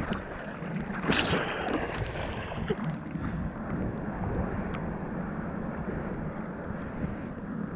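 Ocean water sloshing and rushing around a camera held at the sea surface as a wave breaks past, with a sudden sharp splash about a second in, then a steady rush of surf.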